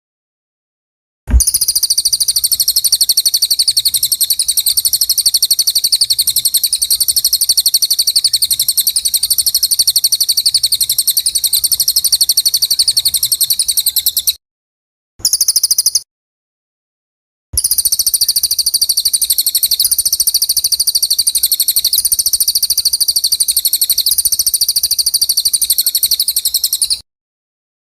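A small songbird's high-pitched, very rapid trilling chatter, held without a break for long stretches. It starts about a second in, cuts off dead at about 14 seconds, returns for a short burst, then runs again from about 17 seconds until it stops abruptly about a second before the end.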